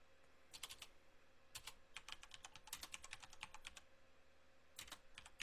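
Faint computer keyboard typing: short runs of key clicks with brief pauses between them.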